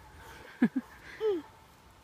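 A couple of brief wordless vocal sounds: a short low falling grunt with a click about half a second in, then a short rising-and-falling 'uh' just after the first second.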